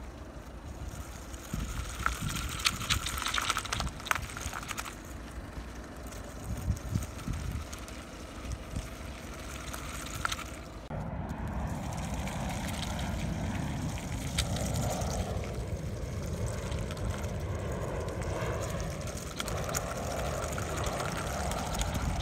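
Homemade RC buggy driving over wet mud: its small electric motor running, with scattered clicks from the wheels and wind noise on the microphone. The sound becomes fuller and steadier about halfway through.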